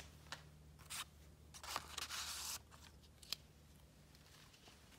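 Faint handling noise: a few light clicks and a brief rustle about two seconds in.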